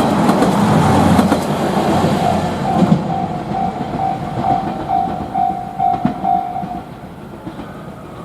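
A train passing over a level crossing, its wheels clattering on the rails and fading away over the first few seconds. The crossing's warning bell rings at about two strikes a second, then stops near the end once the train has cleared.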